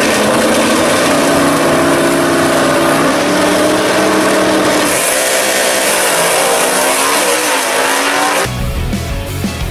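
Two drag-racing cars, a first-generation Chevy Camaro and a Chevy II Nova, at full throttle as they pull down the strip side by side. Their engine pitch climbs and shifts as they accelerate. About eight seconds in, rock music comes in over them.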